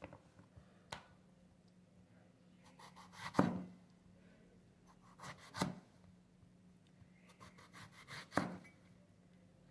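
Kitchen knife slicing through a round eggplant into thick rounds. Each cut rasps through the flesh and ends in a knock of the blade on a plastic cutting board, three times about two and a half seconds apart.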